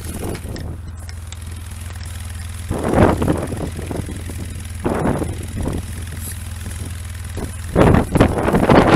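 An engine idling steadily with a low hum. Gusts of wind buffet the microphone about three seconds in, again around five seconds in, and more strongly near the end.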